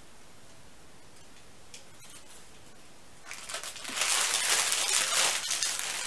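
Rustling and crinkling of cloth and paper being handled, as a packed garment is unfolded and moved. It sets in about three seconds in after a quiet stretch and is loud and irregular.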